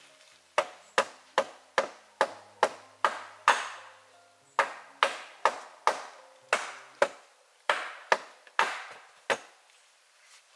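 Hatchet blows on a log wall: two runs of quick, sharp wooden strikes, about two and a half a second, with a short pause about four seconds in.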